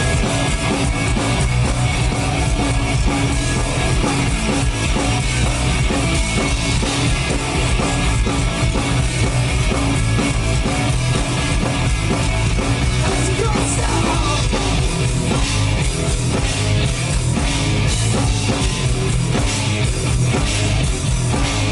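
Live punk rock band playing an instrumental passage: distorted guitars, bass and a driving drum kit, with no singing.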